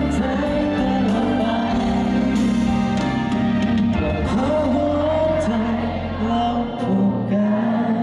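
Music: a male vocalist singing into a microphone over instrumental accompaniment.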